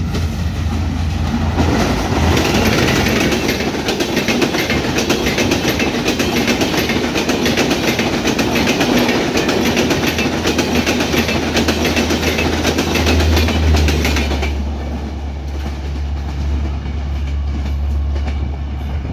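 Diesel-hauled passenger train passing at high speed, its wheels clattering rapidly over the rails. About fourteen seconds in, the clatter fades and a steady low drone is left.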